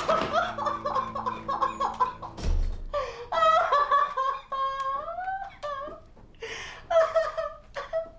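A person laughing in bursts, with a dull thud about two and a half seconds in.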